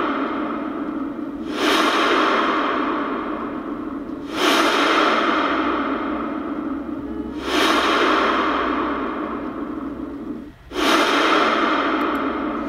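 Intro title sound effect: a swooshing burst of noise starts suddenly about every three seconds, four times, and each one fades away slowly with an echo.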